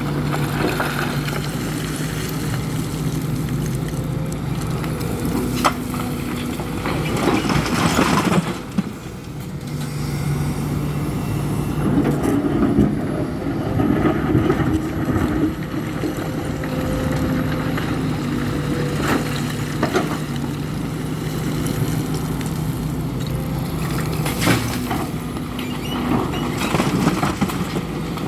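Hidromek 410LC excavator's diesel engine running and rising and falling in pitch as the machine works, with several loud clatters and thumps of stone dropping into a truck bed.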